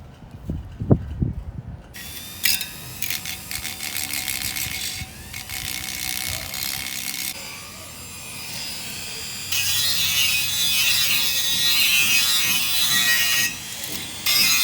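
A few low knocks, then a small handheld power tool working, likely on bicycle parts. It runs in spells, quieter around the middle, louder from about ten seconds in, and stops briefly near the end.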